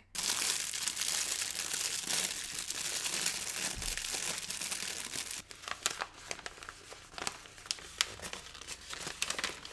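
Crinkly plastic and kraft paper bags of rabbit treats handled and rustled: dense, continuous crinkling for the first five seconds or so, then sparser crackles and snaps. This is the sound rabbits know as the sign of a treat.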